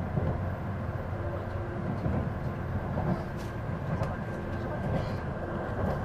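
Cabin noise of a Tokaido Shinkansen car: a steady low rumble from the train running.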